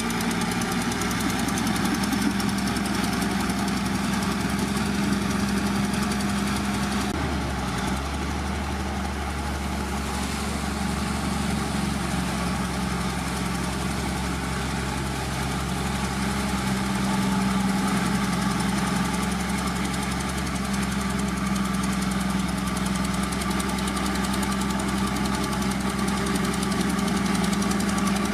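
Diesel engine of heavy earthmoving machinery running steadily under work, with a brief change in its low note about seven seconds in.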